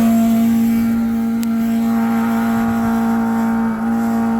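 Senville 24,000 BTU mini split outdoor unit running with a loud, steady hum from its failing compressor; the noise comes from the compressor, not the fan, and the owner takes it as the sign that the compressor is on the way out. A single sharp click about a second and a half in.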